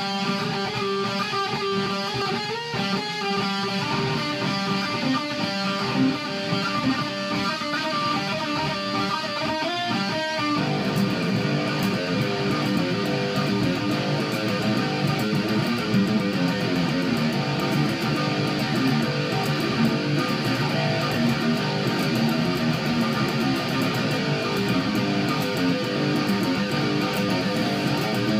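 Electric guitar playing a melodic instrumental piece, first with sparser ringing notes and a few sliding pitches. About ten seconds in it changes abruptly to a denser, fuller strummed part that carries on steadily.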